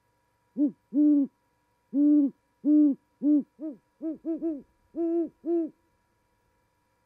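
A pair of great horned owls duetting in mating season. About a dozen deep hoots come in rhythmic runs, the two birds answering each other, and the notes from about four seconds in are slightly higher-pitched.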